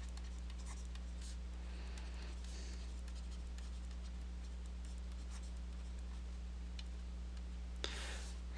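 Faint scratching of writing, mostly in the first few seconds, over a steady low electrical hum, with a single click near the end.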